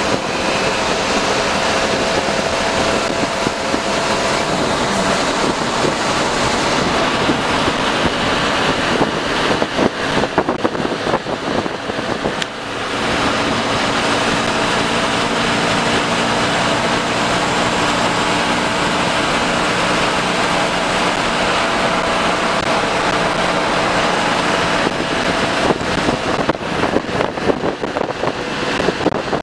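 An AC sleeper bus driving on the highway, heard from the driver's cab: a steady engine hum under loud road and wind noise, with short knocks and rattles about ten seconds in and again near the end.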